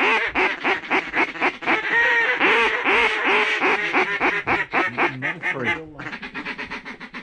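A rapid run of loud mallard-style quacks, about four a second, which turns into a quieter, faster chatter about six seconds in.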